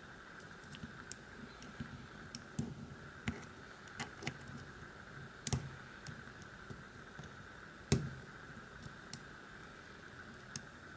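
Irregular small clicks of a lock pick and tension wrench working the pin stack of a VIRO Panzer padlock. The two loudest clicks come about five and a half and eight seconds in. A faint steady hum runs underneath.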